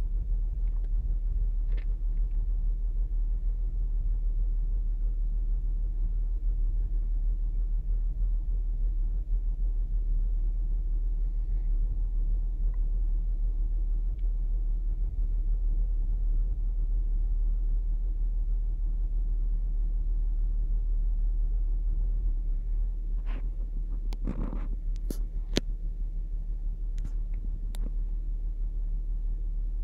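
2008 Saturn Outlook's 3.6-litre V6 idling steadily, a low rumble. A handful of sharp clicks and a knock come in the last quarter.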